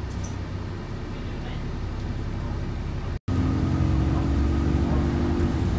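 Alexander Dennis Enviro400 double-decker bus heard from inside, its engine and drivetrain running on the move. After a brief dropout about three seconds in, it is louder, with a steady whine that rises slightly as the bus picks up speed, then stops near the end.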